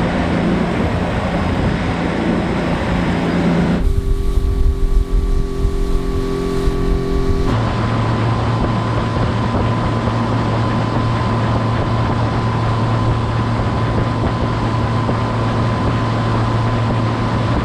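Small speedboat's outboard engine running steadily at cruising speed, with wind and water rushing past the hull; the sound changes abruptly twice as the shots cut.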